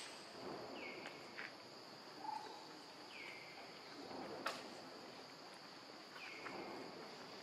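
Steady high-pitched drone of insects, with a bird's short call falling in pitch repeated about every three seconds and two sharp clicks.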